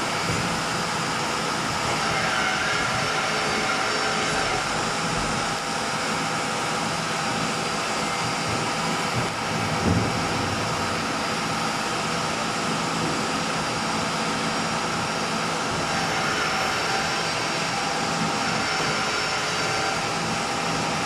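Rear-loader garbage compactor truck running: a steady mechanical drone with a faint constant whine, and one short knock about ten seconds in.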